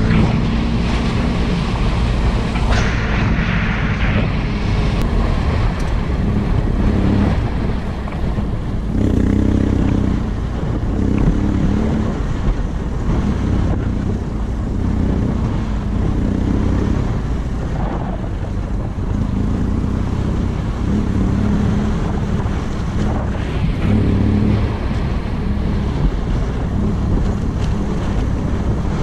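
BMW F800GS parallel-twin engine running while riding, its note coming and going, mixed with heavy wind buffeting on the microphone.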